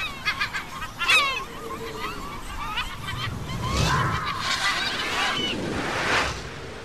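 A flock of birds calling: many short, harsh, overlapping calls, some sweeping down in pitch, going on throughout.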